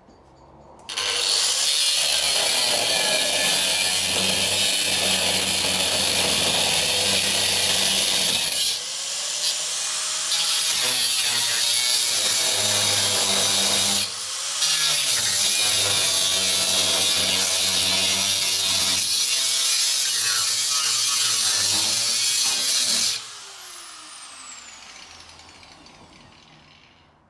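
Angle grinder with a cutting disc cutting through the steel rear crossmember of a Land Rover Defender 110. It starts about a second in, eases off briefly twice, then is switched off and spins down with a falling whine near the end.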